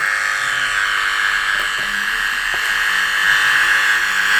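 Loud, steady electrical buzz from a speaker box's amplifier through its loudspeaker. The amplifier's audio input is not yet connected or grounded, and the stray pickup comes out as hum.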